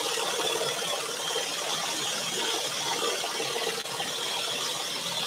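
Scroll saw running steadily, its reciprocating blade cutting through a thin wooden panel along a pierced pattern, with a faint even hum under the cutting noise.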